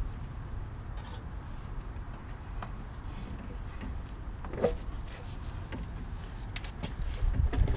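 Clunks and knocks of a replacement front control arm being wrestled into its mounting points, with one louder knock a little past halfway and several more near the end, over a steady low hum.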